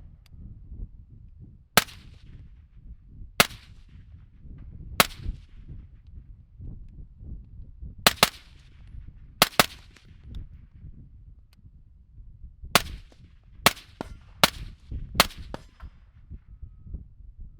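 About eleven suppressed gunshots at irregular intervals, some in quick doubles, each a sharp crack with a short echoing tail: a Knight's Armament NT4 suppressor and a KP9 being fired.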